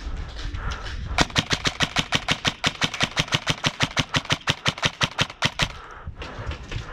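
Airsoft gun firing a long full-auto burst of evenly spaced shots, about eight a second. It starts about a second in and lasts roughly four and a half seconds.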